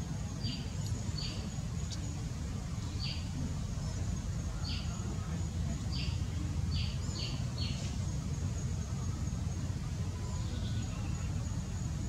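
Outdoor ambience: a steady high insect drone over a low rumble, with about nine short high chirps, several in quick succession around seven seconds in.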